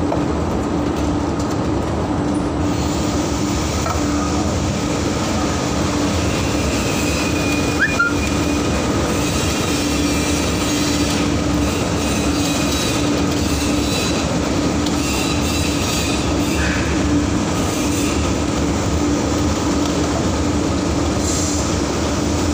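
Steady running noise of factory machinery and modular plastic belt conveyors, with a steady low hum and a brief squeak about eight seconds in.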